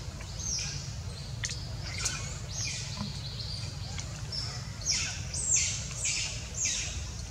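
A string of short, high-pitched calls, each sliding down in pitch, coming thickest and loudest about five to seven seconds in, over a steady low rumble.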